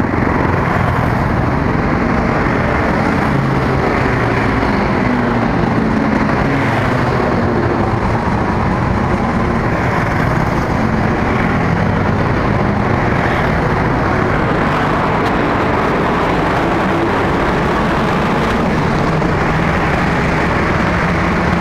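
Road traffic heard from a moving vehicle: a steady loud rush of motorcycle and car engines, with engine pitch rising and falling.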